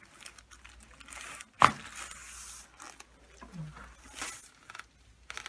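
A single sharp crack from a chiropractic spinal adjustment about a second and a half in, as the joint releases. The chiropractor calls the joint locked up. Soft rustling is heard around it.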